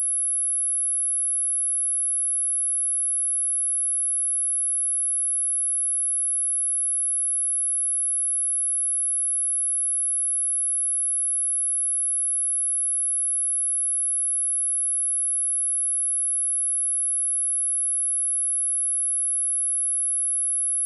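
A pure sine-wave test tone at 10932 Hz, a single very high-pitched whistle held steady at an even level, as played to test a speaker or to shake water and dust out of it.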